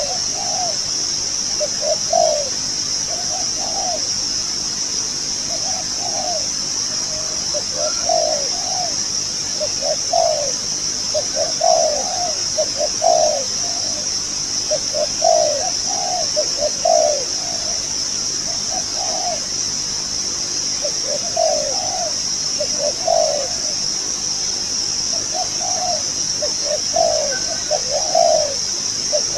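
A decoy dove cooing over and over in short repeated phrases. A steady high-pitched whine runs underneath.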